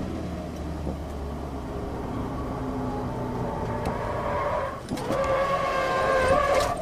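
Ford Mustang on track, engine note falling as the car slows hard; about five seconds in, the tyres squeal in a long held tone as the car slides off the track onto the grass.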